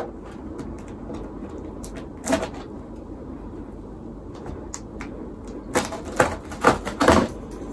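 Large cardboard shipping box being handled and opened by hand: a few short knocks and scrapes of cardboard, one about two seconds in and a quick run of four near the end.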